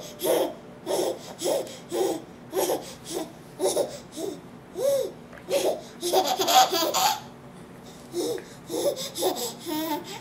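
A baby laughing in short, repeated bursts, about two a second, with a louder, fuller burst around six to seven seconds in.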